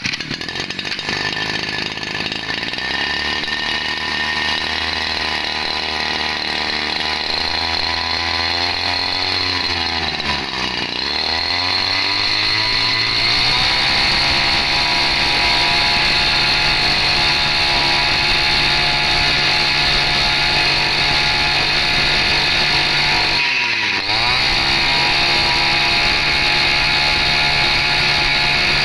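Small 30cc two-stroke brush cutter engine running after starting. It runs at a low idle at first, then settles at a higher steady speed after about eleven seconds. About five seconds before the end it briefly falters and picks up again.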